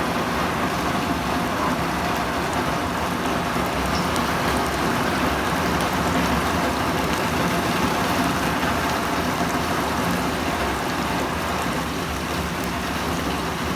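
Finely sliced tempeh frying in hot oil in a wok: a steady crackling sizzle.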